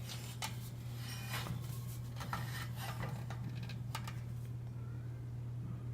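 Light clicks, knocks and rubbing from a metal box fan being handled and turned around, thickest in the first four seconds, over a steady low hum.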